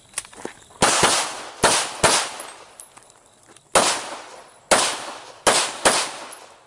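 A string of about eight handgun shots fired during a USPSA stage, some in quick pairs and others after pauses. Each shot is a sharp crack followed by a short echo.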